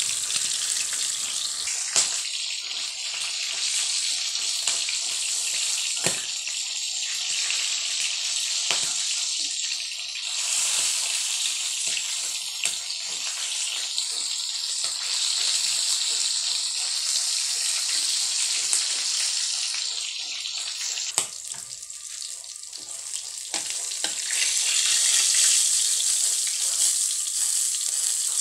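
Meat frying in hot oil in a steel wok on a gas stove: a steady sizzle with frequent crackling pops. It dips briefly and then swells louder near the end.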